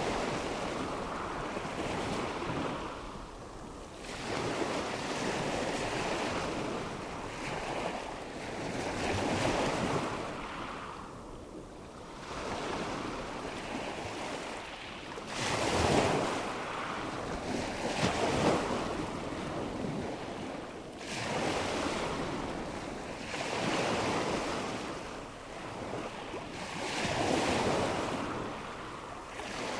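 Ocean waves washing in and out, the surf hiss swelling and fading every few seconds, with the strongest surges a little past halfway.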